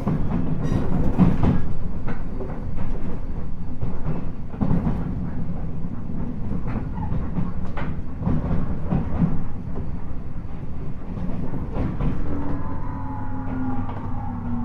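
JR East 719 series electric train running: a steady low rumble with wheels clicking over rail joints, and from about twelve seconds in, a whine that falls in pitch as the train slows.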